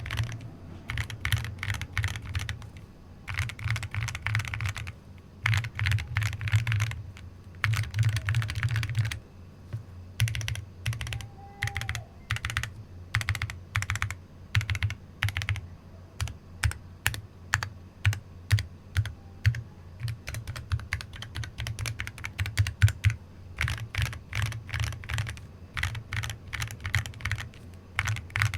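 Typing on a 7sPro mechanical keyboard in a full acrylic case, with FEKER Emerald switches and AKKO ASA-profile keycaps. Fast runs of keystrokes come in bursts, with slower, separate keypresses through the middle.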